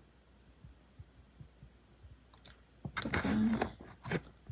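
Near silence for about three seconds, then a short run of handling noises with a brief hummed voice sound among them.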